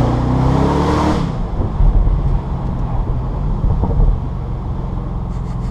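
Bentley Continental GTC V8S's 4.0-litre twin-turbo V8 heard from onboard, rising in pitch under acceleration, then dropping off sharply about a second in as the throttle is lifted. On the overrun the exhaust gives a couple of crackles before settling to a low, steady rumble.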